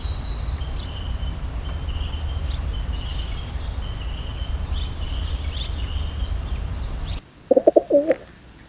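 Wild birds calling: short, thin, high notes repeat over a steady low rumble. After a break near the end comes one loud, short, low-pitched call.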